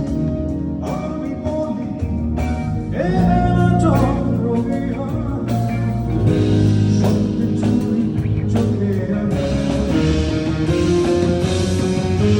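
Live rock band playing, electric guitar over a steady bass line and percussive beats, with a voice singing and a note bent up about three seconds in.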